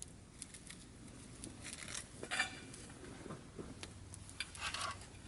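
Scattered light clicks, clinks and knocks of camping gear being handled.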